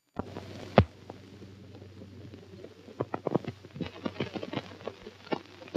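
Surface noise of an old film soundtrack: a steady hiss and low hum with scattered clicks and pops, one louder pop about a second in.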